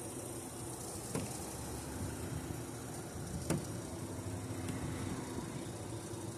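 Steady outdoor noise of wind and passing road traffic with a low hum that comes and goes, broken by two sharp clicks, the louder one about three and a half seconds in.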